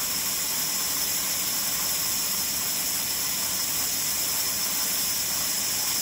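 Large vertical band saw running with a steady hiss, its blade spinning free with no cut into wood.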